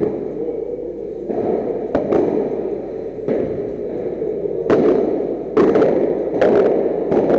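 Padel rally: a string of sharp pops from rackets striking the ball and the ball bouncing, roughly one to two a second with some close pairs, over a steady background hum.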